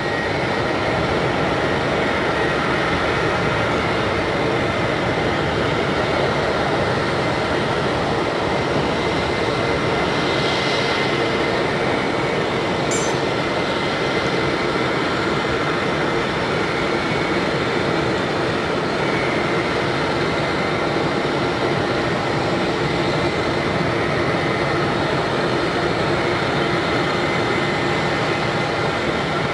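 Boeing 787-8 jet engines on approach to land: a steady rush of jet noise with a constant whine running through it.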